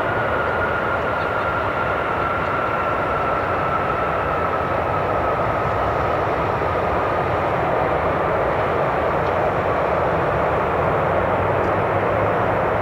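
Boeing 747 Dreamlifter's four Pratt & Whitney PW4062 turbofans running loud as the freighter rolls out after touchdown: a steady jet roar with a high whine that slowly drops in pitch.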